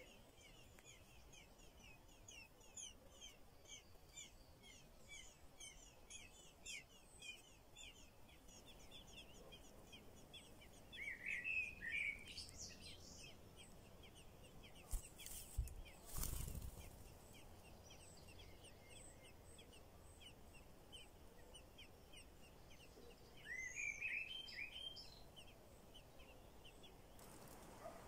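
Eurasian blackbird nestlings begging: faint, rapid high chirping throughout, with two louder flurries of calls, one near the middle and one near the end. A few sharp knocks a little past halfway.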